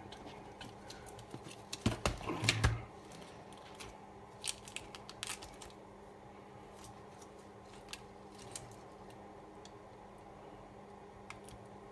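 Hands handling bare laptop parts and cables: a cluster of clicks and rustles about two seconds in, then a few scattered clicks, over a faint steady hum.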